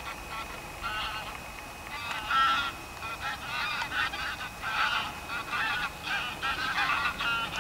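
A flock of geese honking in flight as they come in to land, with many calls overlapping. The calls are scattered at first and become an almost continuous chorus from about three seconds in.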